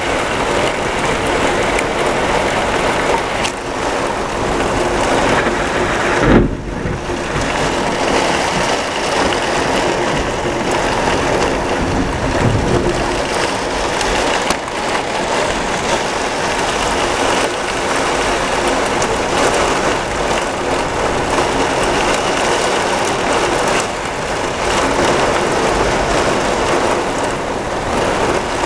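Heavy rain pouring steadily during a thunderstorm. A brief low boom about six seconds in, and a smaller one about twelve seconds in.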